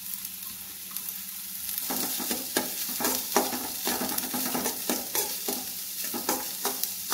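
Chopped onions sizzling in hot coconut oil in a kadai. From about two seconds in, the sizzle grows louder, and a metal spoon scrapes and clicks against the pan as the onions are stirred.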